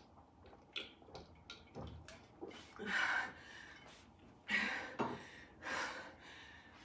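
A woman breathing hard, with several heavy exhales a second or so apart, catching her breath after a strenuous exercise set.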